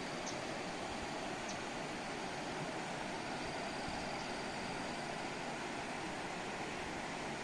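Mountain river rushing over rocks: a steady, even roar of flowing water.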